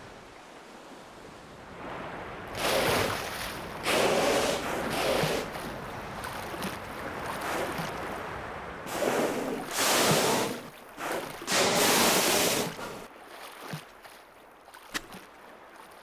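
Killer whales surfacing and blowing: several loud, breathy exhalations through the blowhole, each about a second long, with a quieter wash of water between them.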